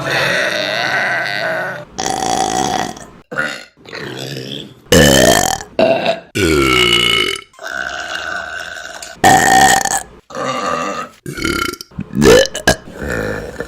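A quick run of about a dozen women's burps one after another, some brief and some drawn out, several sliding up or down in pitch, each starting and stopping sharply.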